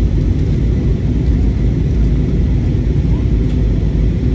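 Jet airliner cabin noise: a steady, loud low rumble of engines and rushing air, heard from inside the cabin during the approach and landing.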